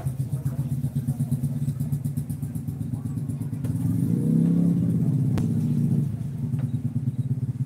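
Heavy vehicle engine running with a steady pulsing beat, getting louder for about two seconds in the middle before settling back.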